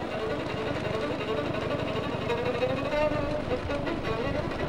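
Fiddle music with gliding, wavering notes, over the steady low drone of a riding lawnmower engine.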